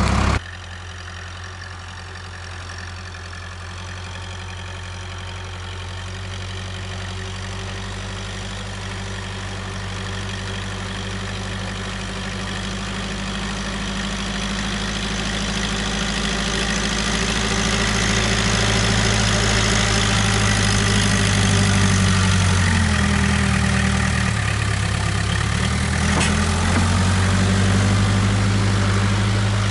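Case 580K backhoe's engine running steadily, growing louder over the first two-thirds as the machine works closer. Near the three-quarter mark the engine speed dips briefly and then picks back up.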